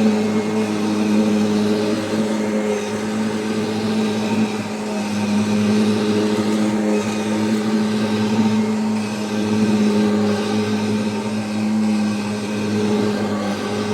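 Kirby G5 upright vacuum cleaner running while vacuuming: a steady motor hum whose pitch and loudness waver slightly.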